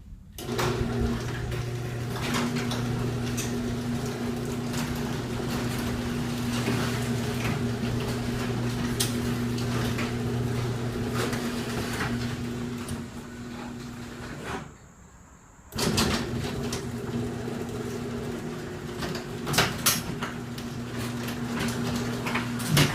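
Motorized garage door opener running steadily as the homemade garage door travels on its tracks, with scattered rattles and clicks from the door. It stops about 14 seconds in, then starts again a second later.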